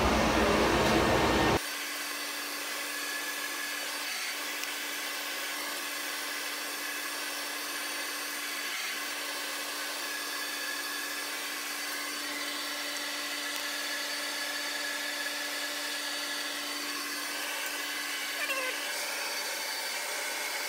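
Steady machine hum with a constant low tone and a faint high whine. A louder rushing noise cuts off abruptly about a second and a half in.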